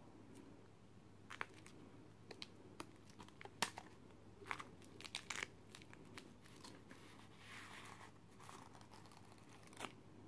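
Faint handling noises: scattered light clicks and taps, with a brief rustle of the turkey feather fletching about three quarters of the way through, as an arrow shaft is handled against a homemade fletching jig.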